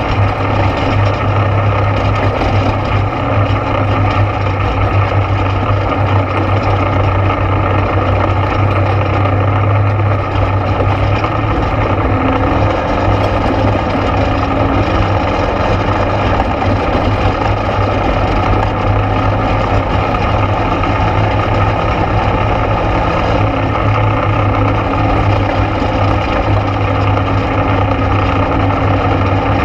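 ATV engine running steadily on the trail, a constant low drone with only small shifts in pitch.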